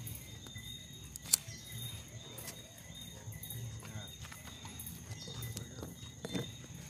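Steady high chirring of insects, with one sharp crack about a second in and a few fainter knocks.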